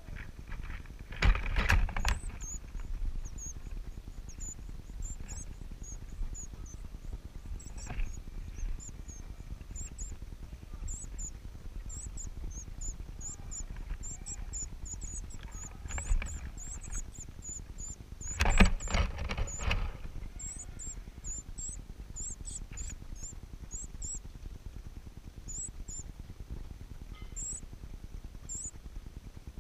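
Nestlings in a rufous-collared sparrow nest, which also holds a shiny cowbird chick, giving rapid, very high, thin begging cheeps, many a second, while a chick gapes for food. Two loud bursts of rustling and bumping break in about a second and a half in and again around 19 s.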